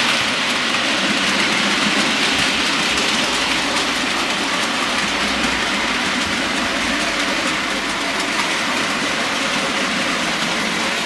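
OO gauge model locomotive running along the track: a steady mechanical running noise of motor and wheels on the rails, with faint repeated clicks.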